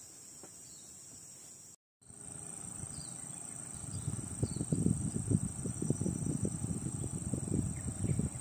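Steady high-pitched drone of insects, broken by a brief dropout about two seconds in, with a low, uneven rumble rising beneath it from about four seconds in and becoming the loudest sound.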